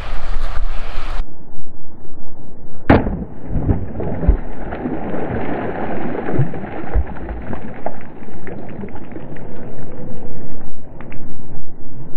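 A rock plunges into shallow creek water beside a toy Lego boat: one heavy splash about three seconds in, then several seconds of splashing and sloshing water with a few low thumps. Before it, running water is heard, and it cuts off suddenly about a second in; after the cut everything sounds deep and muffled.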